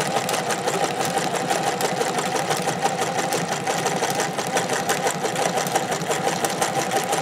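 Vintage sewing machine running steadily at speed, sewing a zigzag satin stitch over a scallop stitch line: a fast, even ticking of the needle and feed over the motor's hum.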